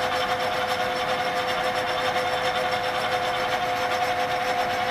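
Barber-Colman 16-16 gear hobbing machine running with its drive on, a steady two-note whine over an even mechanical whir. The hydraulic pump's coupling has a new rubber star and the motor height has been adjusted, to quiet the machine.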